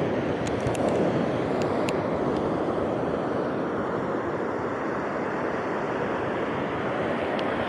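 Ocean surf: waves breaking and washing up the beach in a steady rush, with a few faint clicks in the first couple of seconds.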